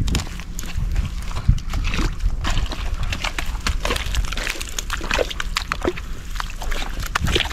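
Footsteps tramping through wet mud and scattered dead sticks: irregular squelches, clicks and snaps, over a steady low wind rumble on the microphone.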